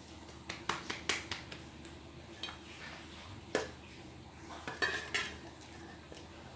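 Cutlery clinking and scraping against a plate in a string of short, irregular clicks while the last of the fried noodles are scooped up to eat.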